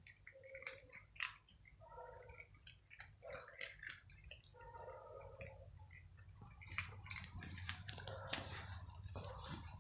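Cats eating dry kibble off stone paving: a quick run of small crisp crunches and clicks, busier in the second half, over a low steady rumble.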